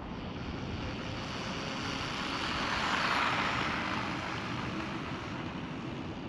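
Maverick DOHA RC truck, converted to a Hobbywing 2435 4500KV brushless motor, making a top-speed pass on a 2S battery: motor and tyre noise grows louder to a peak about three seconds in and fades as it goes by.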